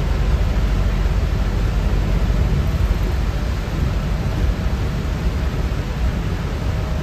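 Steady road noise inside a moving vehicle on a rain-soaked road: a deep rumble under an even hiss of tyres on wet tarmac and rain.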